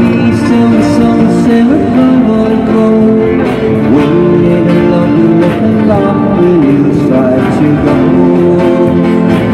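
Live band playing an oldies pop song on electric guitars and drums, with a melody line that slides between held notes.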